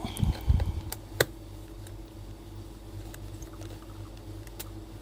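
Bench handling during screw removal from a laptop's bottom case: a few soft low bumps, then one sharp click about a second in, followed by faint scattered ticks of the screwdriver over a steady low electrical hum.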